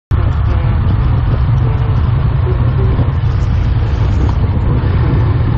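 Motorcycle riding steadily along a street: a loud, continuous rumble of engine, road and wind noise, heaviest in the low end, with no revving or impacts.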